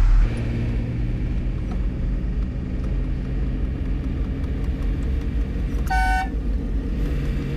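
Hino truck's diesel engine running steadily while driving, heard from inside the cab. A short single horn toot sounds about six seconds in.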